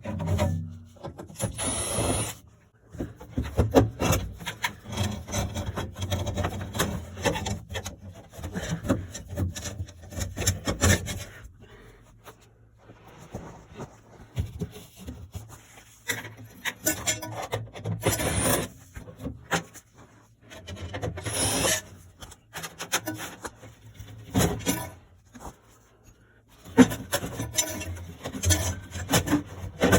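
Irregular scraping and rubbing in stretches of a few seconds with short pauses, and a few sharper scrapes among them.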